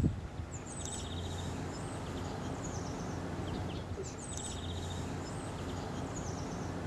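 Small birds chirping, with two quick high trills about a second in and again about four seconds in, over a steady low background hum.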